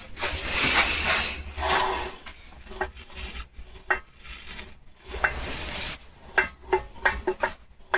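Scraping and rubbing with a series of light knocks as a heavy differential is shifted on a welded steel stand.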